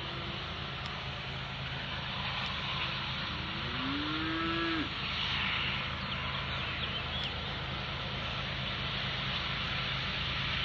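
Diesel locomotives of an approaching coal train running with a steady low drone. About four seconds in, a cow moos once, a rising call that levels off and stops short.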